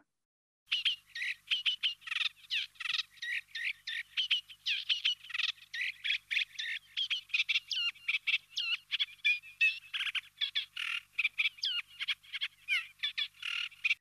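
Eurasian reed warbler singing: a long, unbroken run of rapid, varied notes, starting about a second in.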